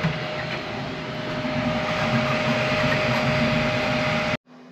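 Qidi Q1 Pro 3D printer running a print: a steady whir with a constant whine from its motors and fans. It cuts off abruptly near the end.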